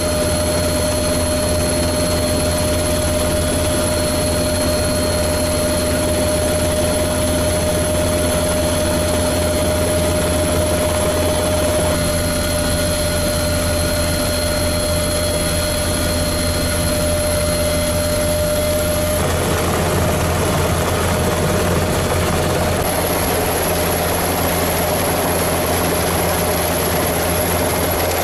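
Steady drone of helicopter turbine and rotor noise, with a low hum and a fixed whine. The tone shifts slightly about twelve seconds in and again a few seconds after that.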